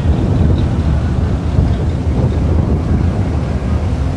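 Wind buffeting the microphone, a steady low rumble, over the engines of slow-moving cars passing close by.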